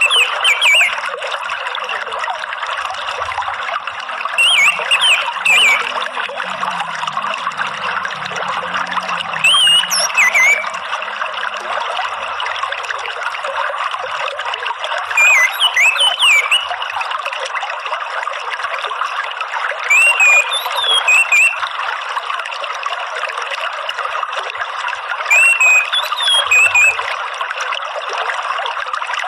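Steady trickling, running water. Short whistled bird chirps cut through it about every five seconds.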